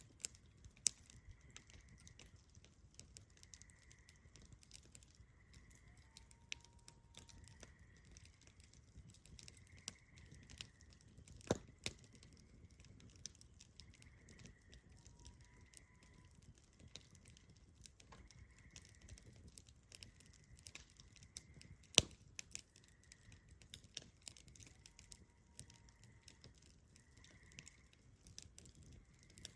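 Wood fire crackling, with irregular sharp pops and a few louder snaps scattered through.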